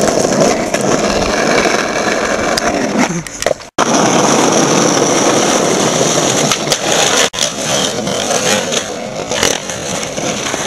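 Skateboard wheels rolling over rough asphalt: a steady grinding noise with small clicks. It is broken by an abrupt cut about a third of the way in and a shorter dropout about two-thirds in.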